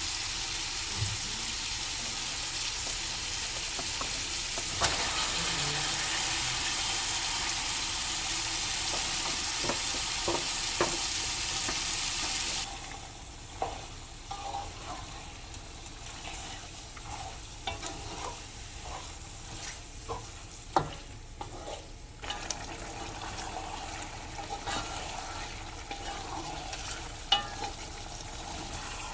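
Food frying in hot oil in a pan, a steady loud sizzle that cuts off suddenly about thirteen seconds in. After that the sizzle is much quieter, with scattered clinks and scrapes of a spoon stirring in the pan.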